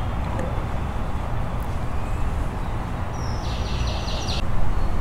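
Outdoor background noise: a steady low rumble, with a short high-pitched trill from about three seconds in, lasting just over a second.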